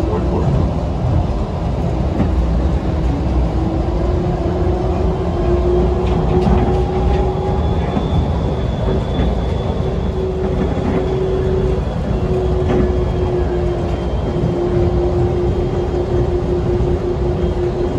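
DFW Skylink automated people-mover train running along its elevated guideway, heard from inside the car: a steady low rumble with a constant motor whine over it.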